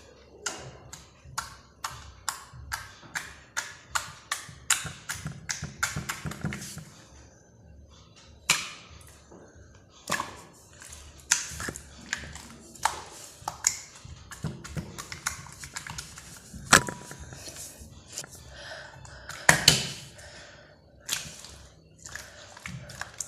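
Jelly slime being played with, making a run of sharp pops and clicks: about two a second at first, then irregular, with a few louder pops later on.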